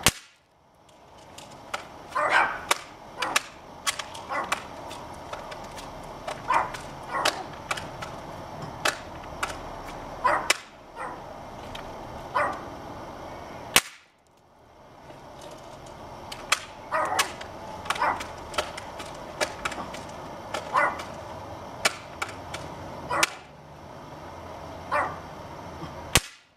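Sharp cracks of BB gun shots at irregular intervals, pellets striking a flip phone and the board behind it, with a dog barking repeatedly in between.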